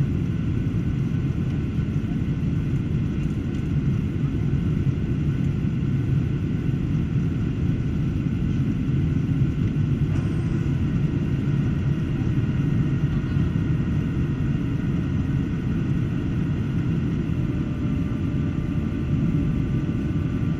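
Steady cabin noise inside a Boeing 737-800 climbing after takeoff: a low rumble from its CFM56-7B engines and the airflow, with faint thin steady whines above it.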